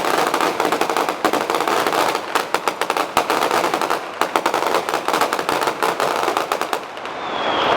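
Feu de joie: a line of soldiers firing blank rounds from their rifles one after another down the ranks, a rapid, uneven running crackle of shots that thins out near the end.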